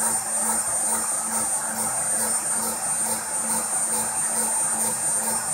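A high-speed rotary-tool spindle on a small CNC mill whining steadily as its bit cuts a copper-clad circuit board. A light pulsing repeats about twice a second.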